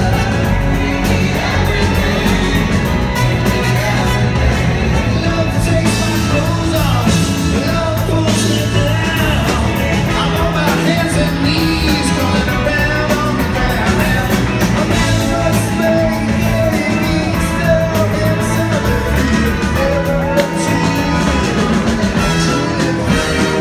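Live rock band performance with a singer and full band, recorded from the audience.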